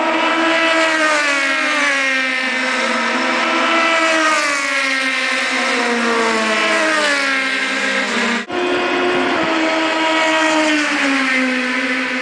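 Race car engines running hard, their pitch sliding down and rising again over a few seconds as the cars lift off and accelerate. About eight and a half seconds in the sound breaks off abruptly, and another engine note carries on.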